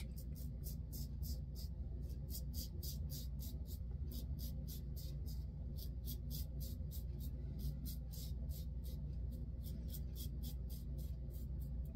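Timeless 0.68 titanium safety razor scraping through lathered stubble on the cheek and jaw in short, quick strokes, about four a second, over a low steady hum.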